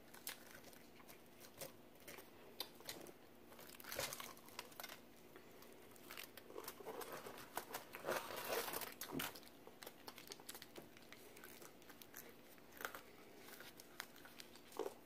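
Faint, scattered crackling, crinkling and tearing of crispy fried chicken breading as pieces are pulled apart and eaten. It is busiest about four seconds in and again from about six to nine seconds in.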